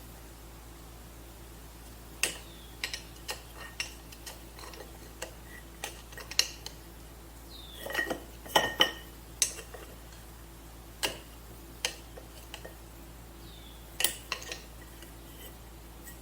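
Metal tools and parts of a Polaris jet ski pump clinking and clattering as it is taken apart: scattered sharp knocks, some ringing briefly, with a quick run of louder clanks about eight to nine seconds in.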